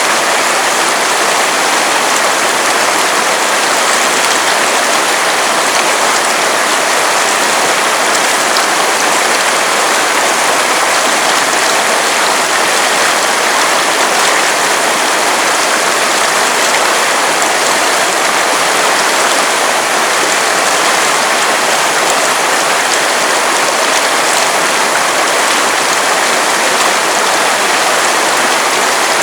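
River water running, a loud, steady rush with no breaks.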